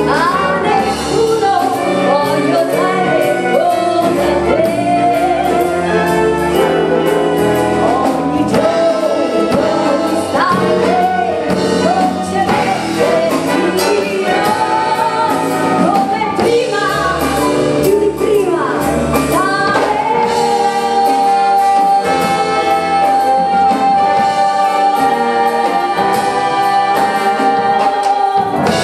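A woman sings over a live concert band of brass, flutes and saxophones. About two-thirds of the way through she holds one long, steady note for roughly eight seconds while the band sustains beneath her.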